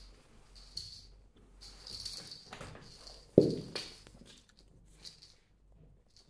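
A cat playing with a fabric wand toy on a wooden floor: bursts of scuffling and rustling with a light jingling edge, and one heavy thump about three and a half seconds in.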